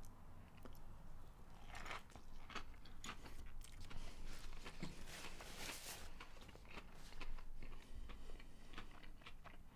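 A person chewing a mouthful of burger coated in sauce and finely crushed potato chips, with irregular crisp crunches from the chips.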